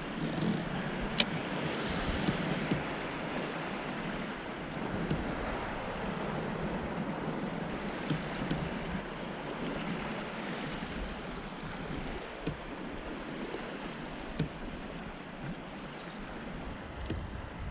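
Steady wash of tidal sea water lapping around a kayak, with wind on the microphone and a few faint sharp clicks.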